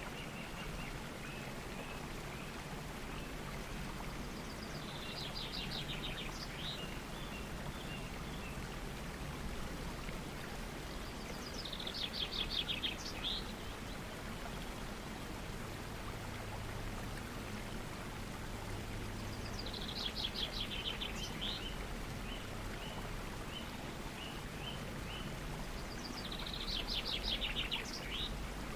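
Waterfall pouring steadily with an even rushing. A bird sings four times over it, each phrase a rapid high trill followed by a few short notes.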